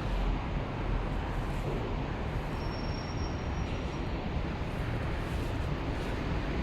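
Steady low rumbling background noise, with a faint thin high whine for a second or two midway.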